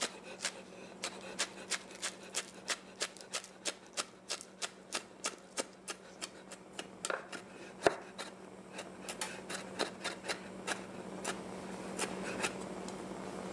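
Chef's knife chopping green onions on a wooden cutting board: a steady run of quick knocks, about two to three a second, with one louder knock about two-thirds of the way through.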